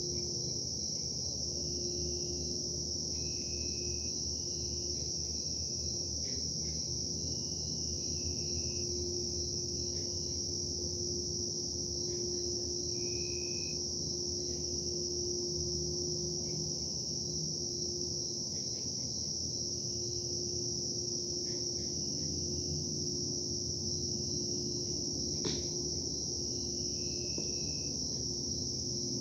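Steady high-pitched cricket chorus over a constant low industrial machinery hum with a droning tone, with scattered short chirps and one sharp click near the end.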